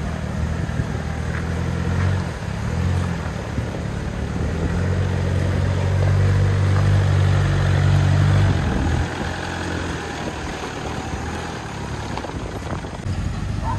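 Toyota Hilux pickup's engine pulling the truck slowly up a steep, slippery dirt climb, a steady low engine note that grows louder from about five seconds in and eases off at about nine.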